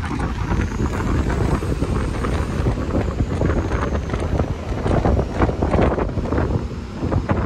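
Wind buffeting the microphone on the open top deck of a moving sightseeing bus, in irregular gusts over a low rumble of the bus and road.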